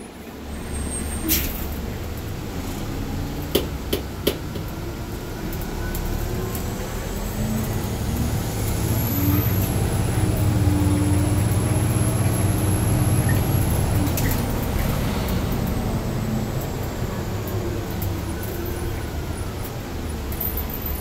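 Ex-Port Authority 1500-series city bus heard from inside the cabin while driving and building speed. A low engine drone grows louder for several seconds, with a thin high whine rising over it and holding before both ease off. A few sharp knocks and rattles come from the bus in the first few seconds.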